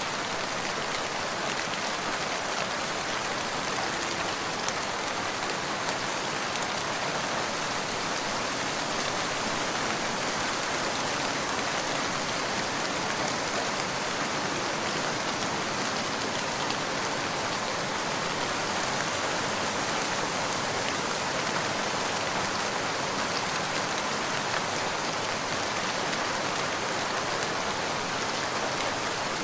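Steady rain falling on a surface, an even hiss of many drops with faint scattered patters.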